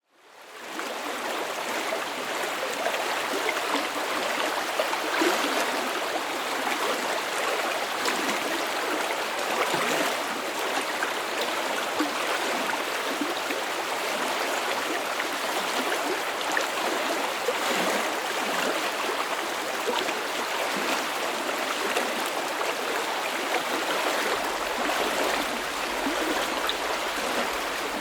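River water rushing and babbling over stones: a steady flowing wash with small gurgles and splashes, fading in over the first second.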